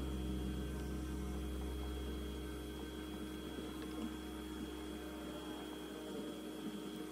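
A low, steady electrical hum that slowly fades away over a few seconds.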